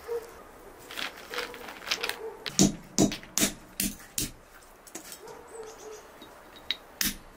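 Brass pestle knocking on whole walnuts in a small brass mortar: irregular sharp strikes, bunched together a second or so in and thinning out, with a couple more near the end.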